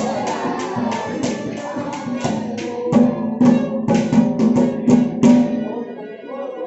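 Haryanvi ragni accompaniment: hand-drum strokes over steady held instrumental tones, the drumming stopping a little after five seconds in and the music dying away.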